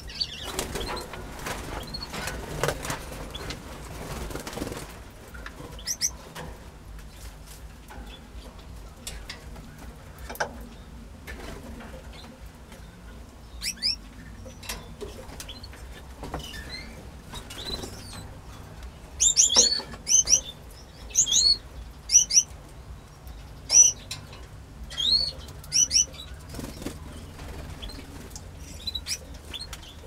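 Caged canaries fluttering their wings, with a rustle of flapping in the first few seconds, then a run of short, high chirp calls in the second half.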